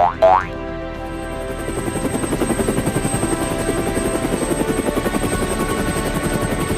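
Two quick rising cartoon chirps right at the start. Then a fast, even chopping whir like a helicopter's rotor fades in about a second in and grows louder, over background music.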